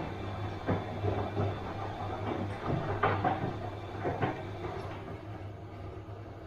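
Bosch washing machine running, its drum turning with a steady low hum and a few irregular knocks, a little softer near the end.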